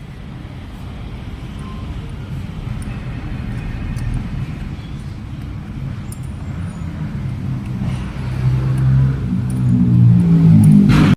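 Hyundai Tucson's engine running, growing steadily louder with a stronger low drone over the last few seconds, then cutting off suddenly.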